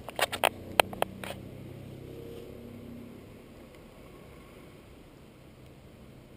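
A few sharp clicks and knocks in the first second or so, over the low steady hum of vehicle engines idling, which fades after about three seconds.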